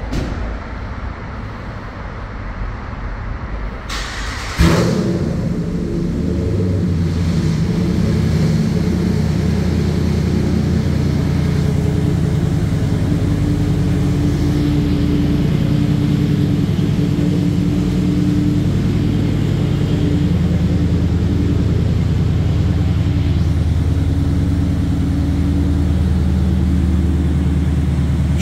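Ram 1500 pickup's engine starting about four and a half seconds in, catching with a sudden loud burst, then idling steadily. A low rumble runs before the start.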